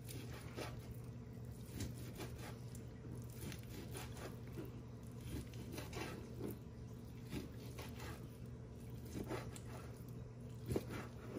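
Santoku-style knife cutting raw sirloin steak into chunks on a plastic cutting board: irregular soft knocks of the blade meeting the board, with a steady low hum behind.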